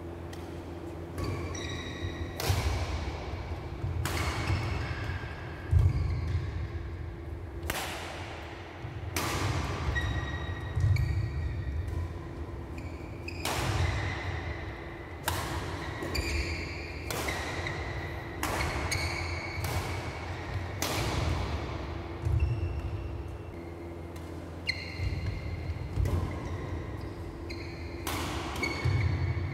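Badminton rally: racket strings striking a shuttlecock again and again, about one hit every second or so, each with a short ringing ping, echoing in a large sports hall. Players' footsteps thud on the court between shots.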